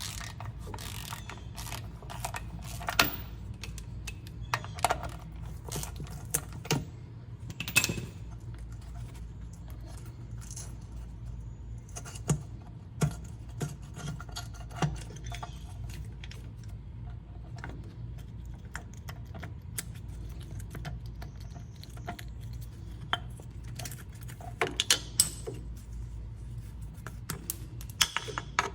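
Small metal parts of a Ford 3000 tractor's PTO lever and shift-fork assembly clinking and tapping as they are handled and worked apart: scattered sharp clinks in clusters, over a steady low hum.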